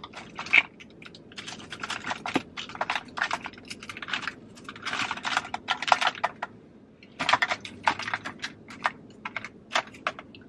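Rummaging through a basket of makeup: small plastic cases and tools clicking and clattering against each other in quick, irregular runs.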